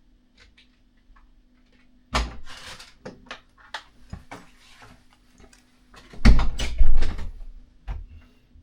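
Freeboy J15 MAX scooter crackling and creaking: an irregular run of clicks and knocks, with heavy thumps about two seconds in and again around six to seven seconds in.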